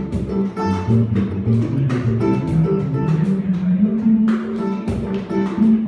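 Small band playing live: guitar over electric upright bass and cajón, with a steady beat of cajón strokes under the melody.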